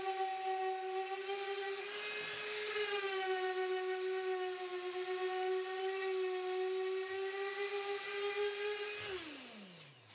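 Random orbital sander running on an MDF panel, a steady whine. About a second before the end it is switched off and winds down, its pitch falling away.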